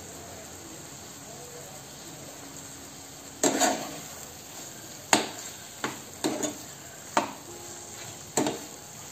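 Chicken pieces in a thick masala sizzling steadily in a frying pan. From about three and a half seconds in, a steel spoon stirs them, giving a series of sharp scrapes and knocks against the pan.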